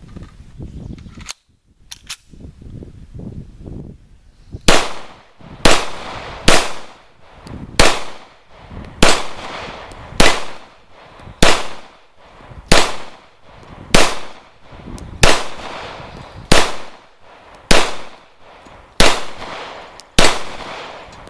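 Zastava EZ9 9mm semi-automatic pistol firing at a steel plate: about fourteen single shots at an even pace, roughly one every second and a bit, beginning about four and a half seconds in.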